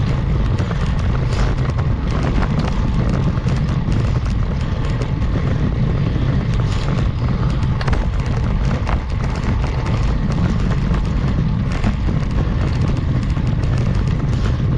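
Steady low wind rumble buffeting the action camera's microphone as a road bike is ridden uphill.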